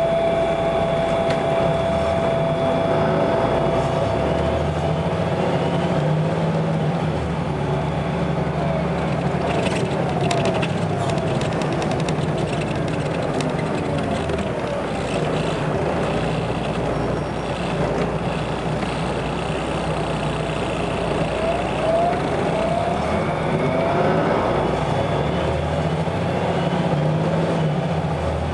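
Volvo B7RLE single-deck bus running, with a steady low engine note and short rising whines twice, about a third of the way in and again about three-quarters of the way in.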